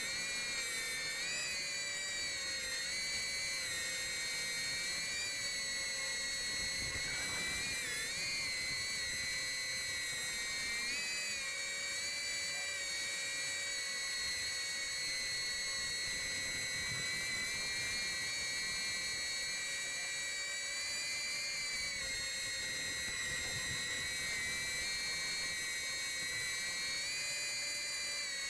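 Small hexacopter's motors and propellers whining steadily in flight, a stack of high tones whose pitch wavers and bends briefly now and then as the throttle changes.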